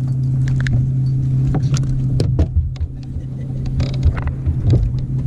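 Steady low hum of a bass boat's electric trolling motor, with scattered clicks and knocks from the spinning reel and rod as a small bass is reeled in.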